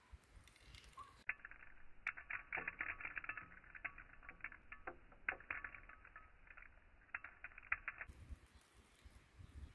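Black peppercorns dropped by hand into a small wooden cup: a run of light, irregular clicks and ticks lasting several seconds, starting about a second in and stopping near the end.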